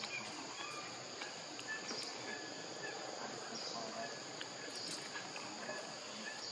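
Steady, high-pitched insect chorus droning without a break, over an even background hiss.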